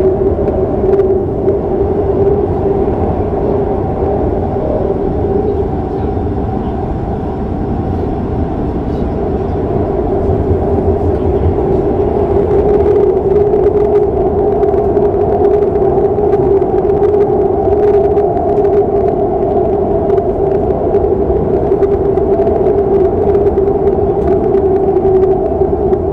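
Shinbundang Line subway train running at a steady speed through a tunnel, heard from on board: a constant rumble with a steady tone in it that holds without change.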